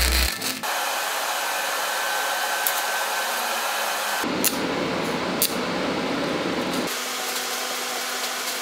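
Welding arc hissing steadily on steel tubing in a jig, the tone shifting abruptly about four seconds in and again near seven seconds as one weld pass gives way to another.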